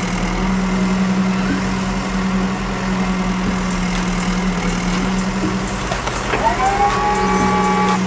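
Cartoon engine sound effect for a yellow tracked mini excavator: a steady, even hum. Short rising tones, like light background music, come in about six seconds in.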